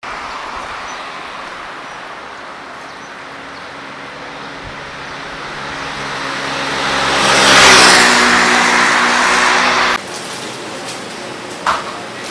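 Street traffic noise with a motor vehicle passing close, growing louder to a peak about eight seconds in and cutting off abruptly about two seconds later. A quieter background and a short knock follow.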